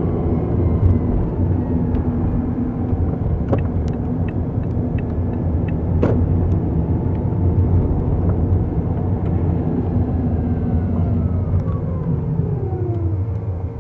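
Car driving on city streets, with steady engine and road noise from onboard. Two sharp clicks come about 3.5 and 6 seconds in, and near the end a whine falls steadily in pitch.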